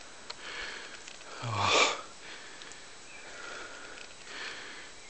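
A man breathing heavily close to the microphone, with hissing, sniffing breaths every second or so. About a second and a half in comes a louder breathy 'oh' that ends in a hissing exhale.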